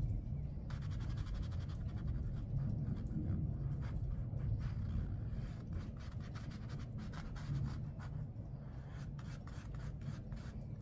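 Watercolour paintbrush stroking and dabbing wet blue paint onto paper in many quick, soft scratchy strokes, over a low steady rumble.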